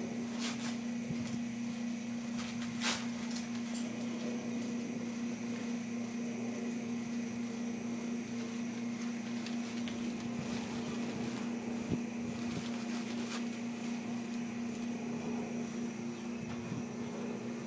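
A steady mechanical hum, with a few sharp clicks.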